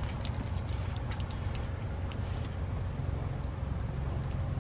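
Spaghetti in red sauce sizzling and bubbling on a hot griddle tray, with scattered small clicks as chopsticks toss and lift the noodles, over a steady low rumble.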